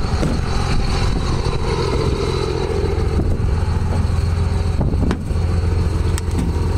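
A motor vehicle running steadily, with a low engine hum and road or cabin noise, and a couple of light knocks near the end.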